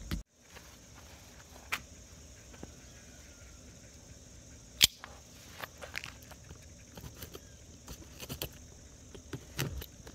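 Light scattered clicks and scratches of a knife working on a taped cardboard box, with one sharper click about five seconds in. Crickets chirr steadily in the background.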